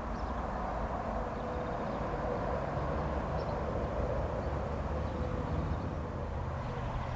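Steady outdoor background rumble and hum, with a few faint, short, high chirps of small birds. The storks themselves make no clear sound.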